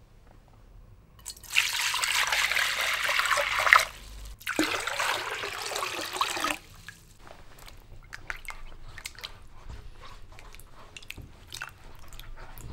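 A stream of water runs into a metal bowl in two pours with a brief break between them. After that come quieter, scattered splashes and sloshing as wild pears are rubbed clean by hand in the water.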